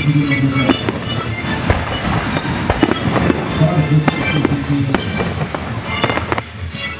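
Aerial fireworks going off in a rapid, irregular string of bangs and crackles, with music playing.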